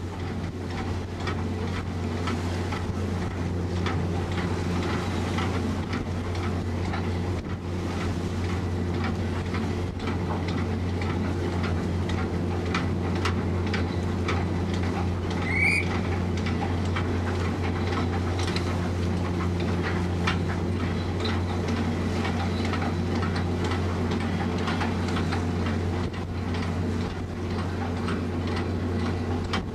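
Steady low drone of a passenger ferry's diesel engines heard from the open deck, with wind crackling on the microphone. A single short, high rising squeak comes about halfway through.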